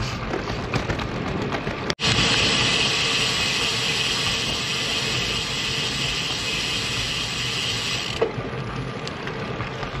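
Wind and road noise on a bicycle-mounted action camera while riding, a steady rushing hiss. It drops out for an instant about two seconds in, comes back louder and brighter, and falls back to a duller hiss near the end.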